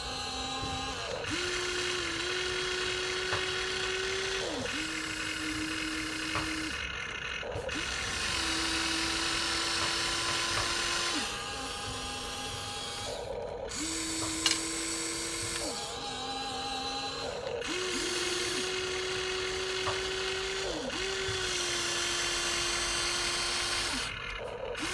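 Electric motors of a Huina 1953 RC excavator whining in stop-start runs of one to three seconds, the pitch stepping up or down as each movement starts, over a gritty gear buzz.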